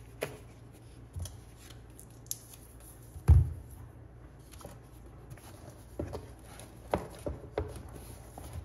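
Hands handling the iPad's box and packaging: scattered clicks, taps and rustles, with one heavier low thump a little over three seconds in.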